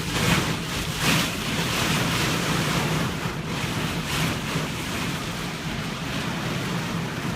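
Rushing noise of storm wind and surf, with swells about a second in and again around three to four seconds in.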